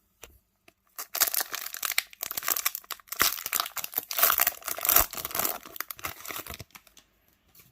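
Foil trading-card pack wrapper crinkling and tearing as it is opened, a dense crackle that starts about a second in and stops near the end.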